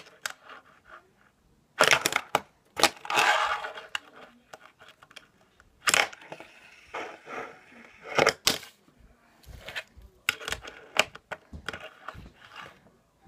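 Fingerboard being ridden and flipped on a table and over a ledge of stacked wooden sticks: a run of sharp clacks from tail pops, landings and the board striking the ledge, with short rolling scrapes of the small wheels between them.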